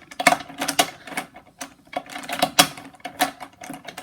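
Rubik's brand 3x3 cube being turned one-handed: quick, uneven plastic clacks of the layers, about three or four turns a second, during the last-layer permutation step.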